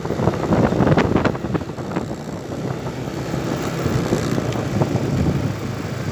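Yamaha Nouvo automatic scooter engine running steadily while riding along, with wind rumbling on the microphone.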